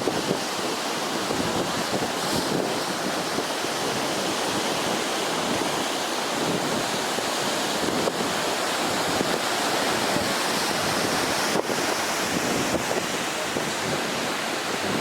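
Ocean surf with wind noise on the microphone: a steady rushing noise.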